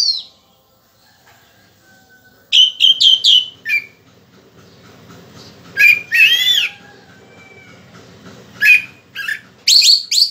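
Orange-headed thrush singing in loud bursts of quick, whistled, sweeping phrases, broken by short pauses: a phrase at the start, a run of four or five rapid notes a few seconds in, a longer warbled phrase near the middle, and two more bursts near the end.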